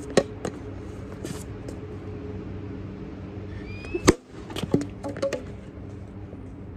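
A plastic wiffle ball bat strikes the ball with one sharp crack about four seconds in, followed by a few lighter clacks, over a steady low hum.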